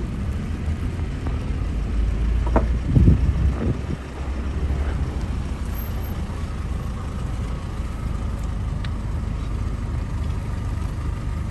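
Low, steady rumble of motor vehicles, swelling briefly as one passes close about three seconds in.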